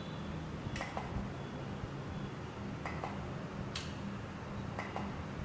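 Relays on an industrial washing machine controller board clicking as the running wash program switches its outputs on and off: about six sharp clicks, mostly in close pairs, over a low steady hum.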